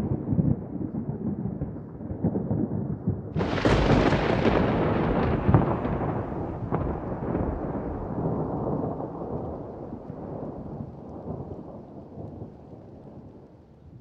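Thunder: a low rumble dies down, then about three and a half seconds in a sudden sharp crack rolls into a long rumble that fades away slowly.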